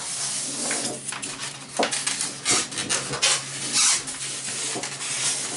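Polystyrene foam packaging squeaking and rubbing, with short scrapes, as a food processor's main body is worked loose and pulled out of its moulded foam insert.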